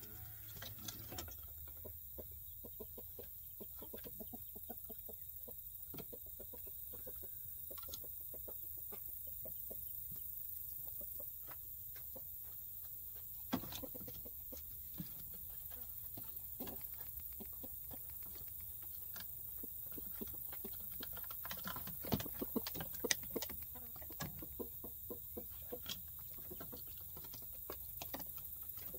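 Domestic hens clucking softly as they gather at the coop door, with a few sharp knocks about halfway through and a cluster more about three quarters of the way in.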